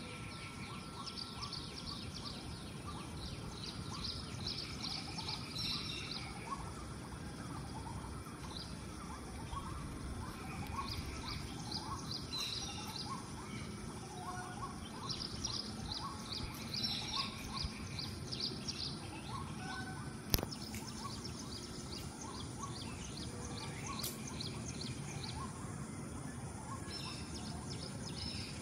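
Birds chirping in quick repeated runs of high notes, with a string of short lower notes, over a steady outdoor background noise. One sharp click comes about twenty seconds in.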